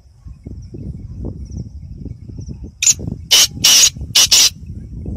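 Black francolin calling: a run of about five short, harsh notes within about a second and a half, starting a little under three seconds in, over a constant low rumble.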